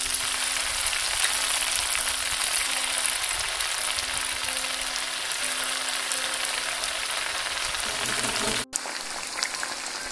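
Breadcrumb-coated mango strips deep-frying in hot oil in a kadai: a steady, dense sizzle with fine crackles. It drops out for an instant near the end and carries on slightly quieter.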